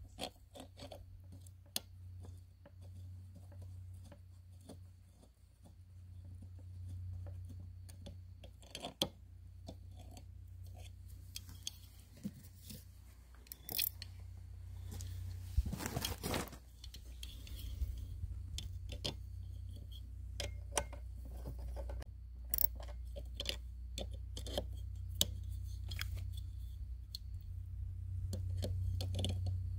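Scattered small metal clicks and clinks of needle-nose pliers, nuts and the saw chain being handled while nuts are started on the bolts of a chainsaw mill cutting guide, over a steady low hum. A louder scrape comes about halfway through.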